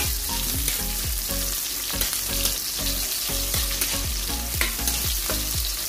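Chopped onion and garlic sizzling in hot oil in a wok, being sautéed, with a metal spatula scraping and knocking against the pan again and again as it stirs.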